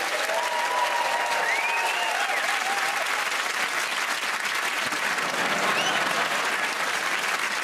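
Studio audience applauding steadily, with a few voices calling out over the clapping.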